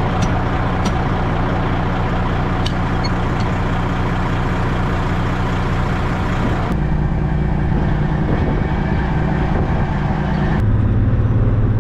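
Semi truck's diesel engine running steadily, its note changing abruptly twice, about two-thirds of the way through and again near the end.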